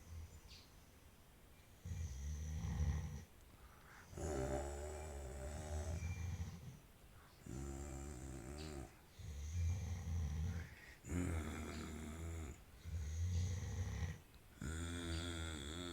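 Snoring: a run of low, rattling breaths, each one to two seconds long with short pauses between, starting about two seconds in.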